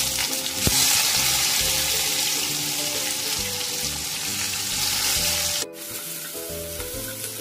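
Chopped onions sizzling as they fry in hot oil with nigella seeds in a kadai, stirred with a wooden spatula. The sizzle drops abruptly in level near the end.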